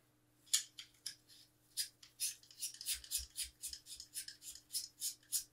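A threaded metal filter cell being screwed by hand into the carousel of a Starlight Xpress 7-position filter wheel: a run of light, scratchy thread clicks, a few a second, with a low knock or two about halfway.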